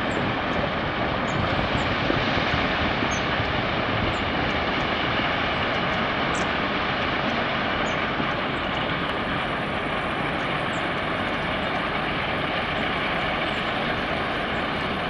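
Steady industrial noise from a lime works and quarry: an even, dense rumble and hiss with no distinct engine note standing out.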